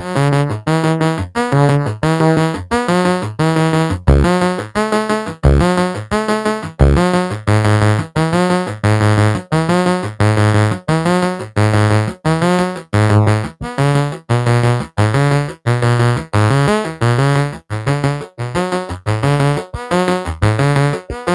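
Synthesizer music: a steady run of short, separate keyboard notes, about two a second, over a bass line.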